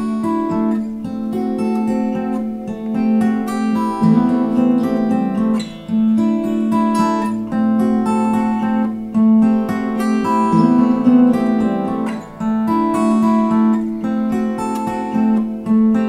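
An acoustic guitar strummed in a steady rhythm together with a Telecaster-style electric guitar picking notes, an instrumental guitar passage with chords changing every couple of seconds.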